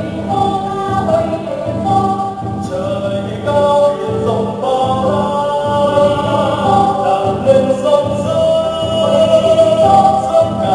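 Traditional Vietnamese water-puppet theater music: several voices singing together over instrumental accompaniment and a steady low tone.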